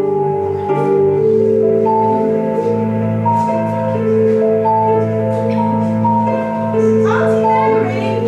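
Background music: a slow melody of long held notes over steady low sustained tones.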